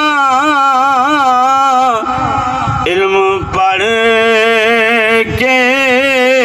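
A man's voice chanting a devotional verse in long, drawn-out notes whose pitch wavers and curls, pausing briefly a few times between phrases.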